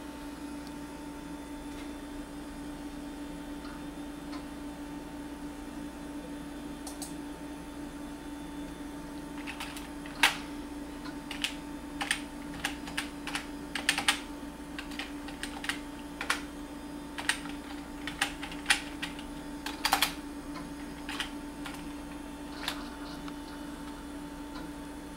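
Typing on a computer keyboard: a run of irregular keystrokes, beginning about ten seconds in and stopping a couple of seconds before the end, over a steady low hum.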